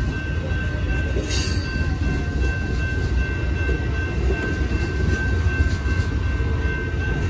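Amtrak Superliner bilevel passenger cars rolling past at a crossing: a steady, dense low rumble of wheels on rail. A steady high tone runs underneath, and there is a brief hiss about a second in.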